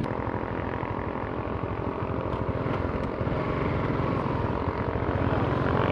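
Honda scooter's small single-cylinder engine running steadily, growing a little louder in the second half.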